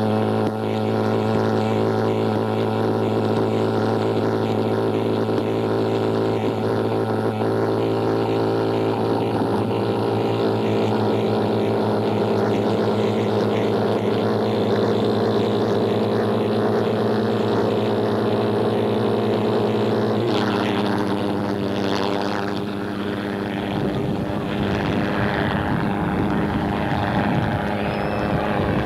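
Pulse jet engines of a large radio-controlled model jet running with a loud, steady, droning buzz as the model starts and makes its takeoff run. After about twenty seconds the buzz thins out and wavers as the plane climbs away.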